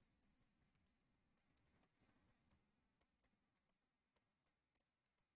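Faint, irregular clicks of a computer mouse, about three a second, over near silence.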